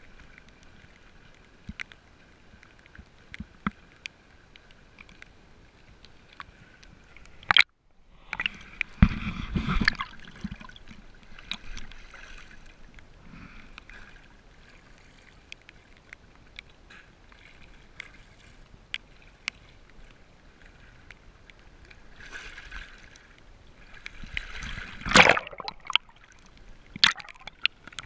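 Water sloshing and lapping against a camera held at the water's surface, with scattered small clicks and knocks. There are two louder splashes, one about nine seconds in and another near the end.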